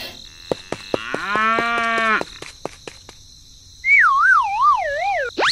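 A few sharp clicks, then a drawn-out call with a steady pitch lasting about a second. After a short pause comes a wavering whistle-like tone that slides down in pitch, ending in a quick upward sweep.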